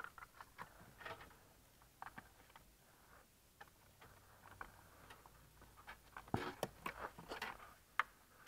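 Cables and plastic dash trim rustling, scraping and clicking as the cables are worked up through the dash by hand. The sounds are light, scattered clicks and scrapes, busier about six to seven and a half seconds in.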